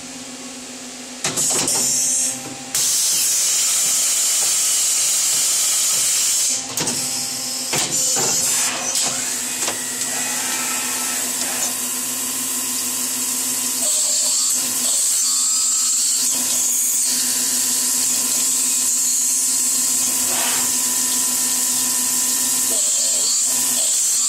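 CNC milling machine running, coming up to full speed in the first few seconds, then holding a steady high hiss over a constant low hum, with a few short knocks along the way.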